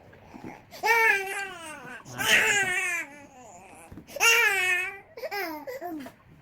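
Baby crying: four wailing cries, each falling in pitch, with short pauses between them.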